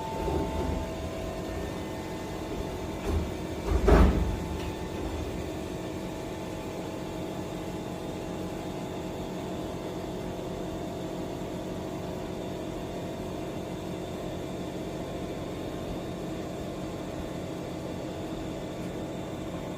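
Vehicle engine idling steadily, with a loud thump about four seconds in.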